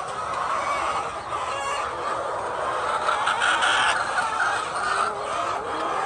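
A large flock of white laying hens clucking and calling all at once in a dense, continuous din, swelling louder about three seconds in.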